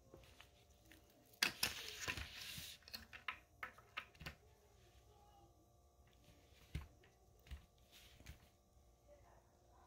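Office-chair casters being handled and pushed into the sockets of a plastic five-star chair base: scattered light plastic clicks and knocks, with a brief rustling scrape about a second and a half in.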